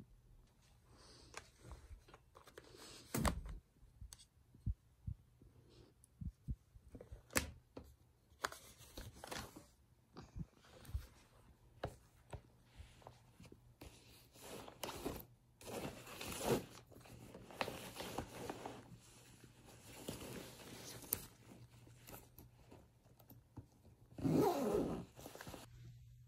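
Rustling and handling noise: scattered knocks, clicks and rustles of clothing and belongings being moved about, with a louder rustle about a second long near the end.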